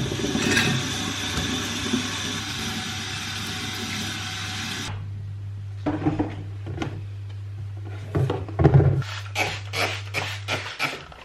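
A steady rushing hiss over a low hum cuts off sharply about five seconds in. It is followed by a series of knocks and clatters from kitchen tidying.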